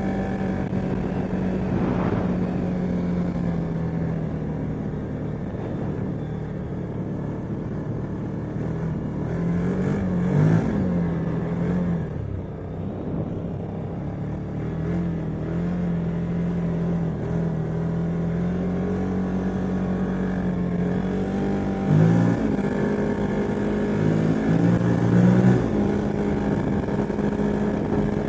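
CFmoto ATV engine running under way, a steady note with a few brief rises and falls in pitch as the throttle changes, around ten seconds in and twice more near the end. The machine has a known exhaust leak.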